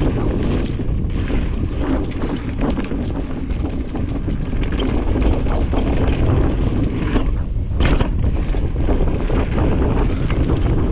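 Wind rushing over the camera microphone as a mountain bike descends a dirt singletrack, with the tyres rolling over packed dirt and dry leaves and the bike rattling and clicking over bumps.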